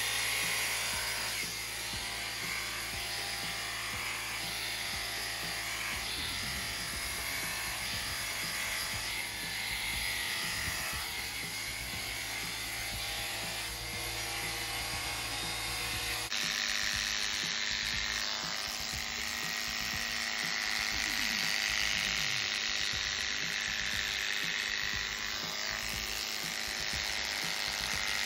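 Electric horse clippers buzzing steadily as the blade shears through a horse's thick winter coat. The sound changes abruptly about halfway through.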